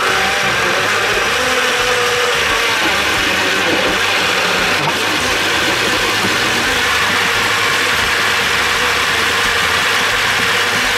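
Uten countertop blender running steadily and loudly at full speed, puréeing chopped tomatoes, onions and garlic into a smooth sauce.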